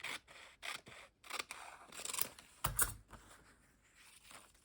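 Paper rustling and crackling in a series of short strokes as a torn-out paper image is handled and positioned on a journal page, with a soft bump against the table a little before the middle.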